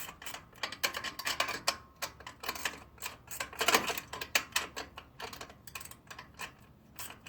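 Metal wrenches clicking and clinking on stainless steel nuts and bolts as they are tightened a little at a time: a run of irregular sharp clicks, the loudest a little under four seconds in.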